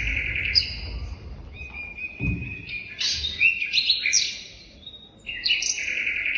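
Recorded birdsong in a dance's backing track, played over the hall's loudspeakers: repeated bursts of high chirping and trilling calls, with a brief lull about two-thirds through.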